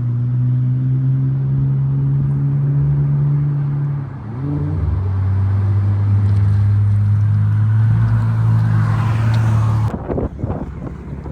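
Infiniti VR30 twin-turbo V6 running through a Tomei single-exit exhaust at a steady engine speed, with a short dip and rise in pitch about four seconds in, as at a gear change. The steady exhaust note cuts off suddenly near the end, leaving a rough, uneven rumble.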